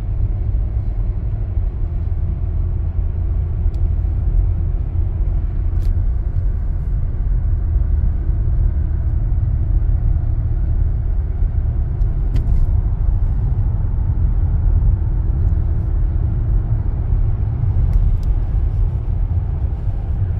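Steady low rumble of a moving car's road and engine noise, heard inside the cabin.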